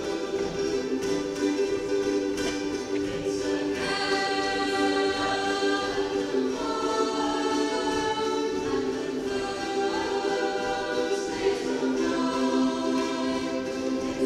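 A ukulele ensemble strumming together while the players sing in unison, in long held notes.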